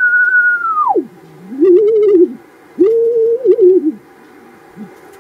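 Ham radio receiver whistling with the beat note of a homemade 12BE6 Hartley oscillator's 40-metre carrier as the oscillator is tuned. A single pure whistle holds high, drops steeply to a low note about a second in, then returns twice as shorter, wavering low tones. The pitch moves with the oscillator's tuning and with its drift, since it is quite unstable.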